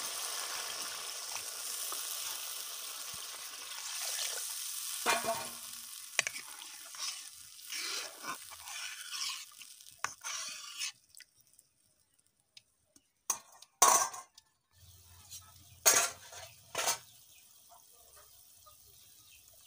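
Fried masala sizzling in a hot metal karahi after water has been added, with a steel spatula stirring and scraping the pan. The sizzle stops about eleven seconds in, and a few sharp knocks follow.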